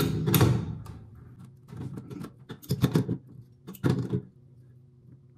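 Metal fittings clicking and knocking as the nuts of a braided stainless flex supply line are tightened onto a sink angle stop and faucet. The clicks come in short clusters about 2, 3 and 4 seconds in, then die down.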